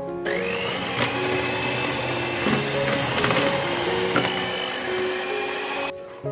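Electric hand mixer running at low speed, its beaters churning flour into cake batter in a plastic bowl. The motor whine rises as it starts and the noise cuts off near the end. Soft piano music plays underneath.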